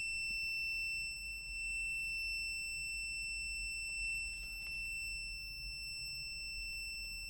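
BSIDE A1 digital multimeter's continuity buzzer giving one steady, unbroken high-pitched beep, signalling continuity with the meter reading 0 ohms.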